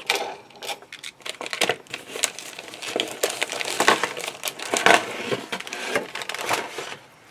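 Rustling and crinkling of packaging being handled, broken by many small irregular clicks and knocks.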